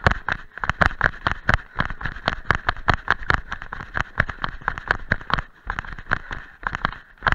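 A trail runner's quick footfalls on a dirt forest path covered in dry fallen leaves, running downhill in a fast, even rhythm of about three to four steps a second.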